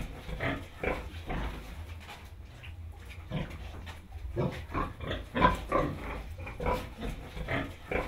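Pigs grunting: short, irregular grunts a few each second, coming thicker in the second half.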